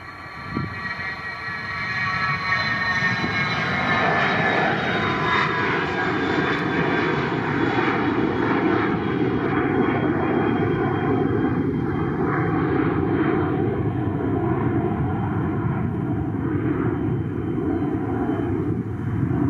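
Aircraft engines close by: a whine of several high tones sliding slowly downward over the first few seconds, while a loud, steady roar builds and then holds.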